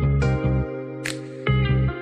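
Background music with sustained pitched notes over a repeating low note pattern. A brief hiss cuts through it about a second in.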